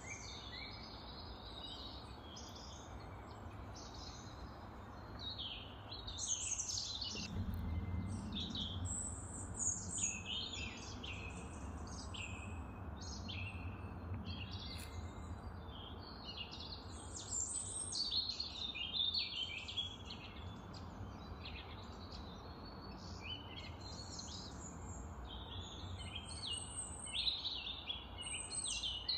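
Many small birds chirping and singing over one another throughout, with steady background noise underneath and a low rumble that comes up about seven seconds in.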